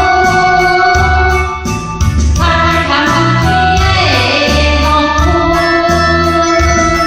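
Song with female singing over a backing track that has a steady bass beat.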